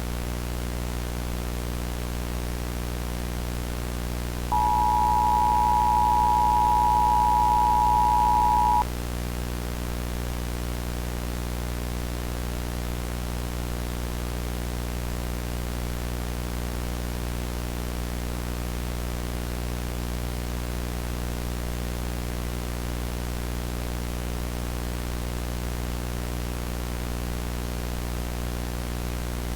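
The two-tone Emergency Alert System attention signal sounds for about four seconds, starting a few seconds in, over a steady low droning hum with static hiss.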